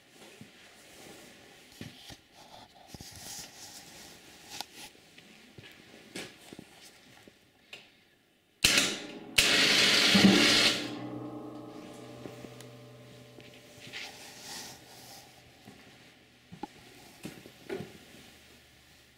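Light clicks and rattles from handling the steel ATV plow mount and frame. About halfway through comes a loud metal clank that rings on with several tones and fades away over a few seconds.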